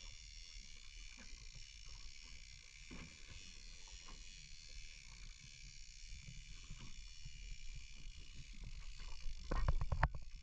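Small fibreglass fishing boat under way at sea: a steady low rumble of wind and water against the hull, with scattered small knocks and a louder rough buffet near the end.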